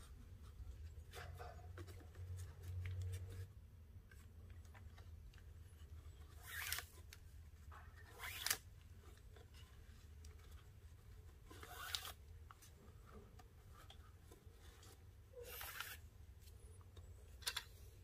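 Nylon paracord sliding and rubbing as strands are pulled through and snugged into a knot: five short swishes, the sharpest about eight seconds in, over a faint low hum.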